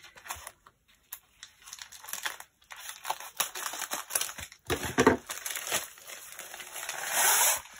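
Plastic packaging crinkling and rustling as a parcel is cut open with scissors and a diamond-painting canvas is pulled out of it, in irregular crackles with a longer, louder rustle near the end.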